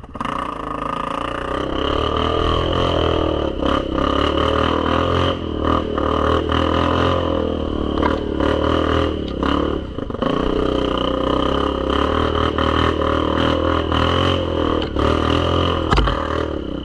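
ATV engine running under load, its revs rising and falling, with scattered knocks and clatter from the machine working over rough, icy ground.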